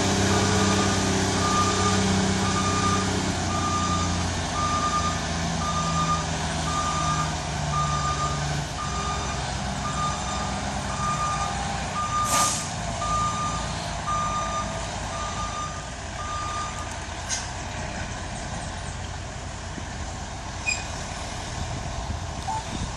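Caterpillar 140H motor grader reversing away, its backup alarm beeping at one steady pitch about once a second until it stops some 17 seconds in, while its diesel engine fades as the machine recedes. A single sharp knock sounds about twelve seconds in.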